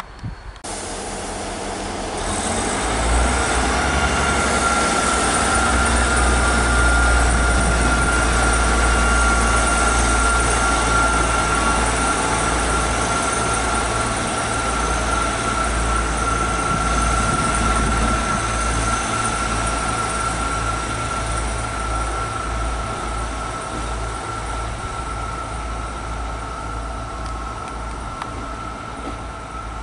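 South Western Railway Class 158 diesel multiple unit on the move, a low diesel rumble under a steady high whine. It swells over the first few seconds and slowly fades.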